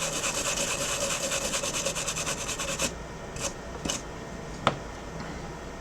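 Fast, even rubbing or scraping strokes that stop abruptly about three seconds in, followed by three light taps.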